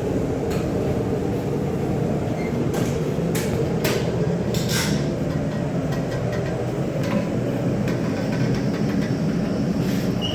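Forge running with a steady low roar, with a few light metallic clinks of tools and stock about a second in and again around three to five seconds in.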